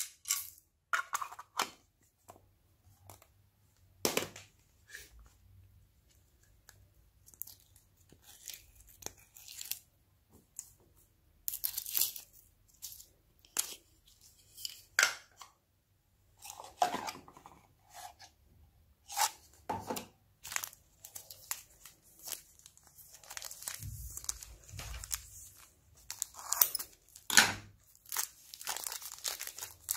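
Hands squeezing, pressing and poking glossy slime loaded with sequins, beads and foam pieces in a glass tray: irregular short squishes and clicks with quiet gaps between them, the louder ones when a lump of green slime is squeezed and pressed in.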